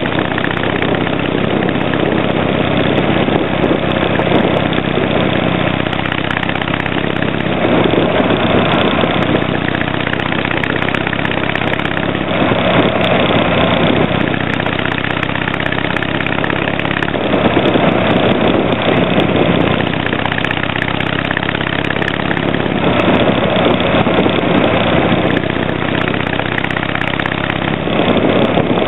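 Harley-Davidson Sportster 883 Hugger's V-twin exhaust, through tapered mufflers with silencer inserts fitted, heard from the moving motorcycle at road speed. The engine note swells and eases a few times.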